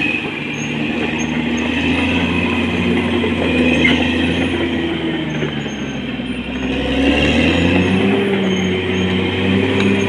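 Caterpillar D6R XL bulldozer's diesel engine running steadily with a rhythmic pulsing and brief high squeaks, as of steel tracks; about two-thirds of the way in the engine note rises as it takes more load.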